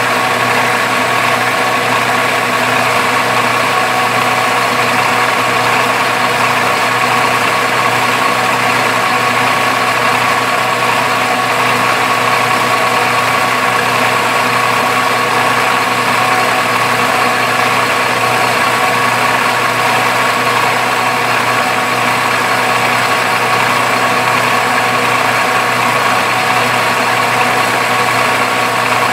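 Metal lathe running steadily under power, its motor and gear train giving a constant hum with a steady whine, while it takes a light finishing skim cut on a brass bar with a high-speed-steel tool.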